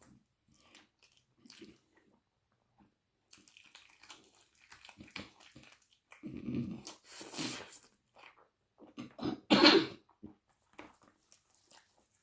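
Close-miked eating of chicken wing curry, rice and onions: soft chewing and mouth sounds, broken by several louder sudden mouth noises, the loudest about ten seconds in.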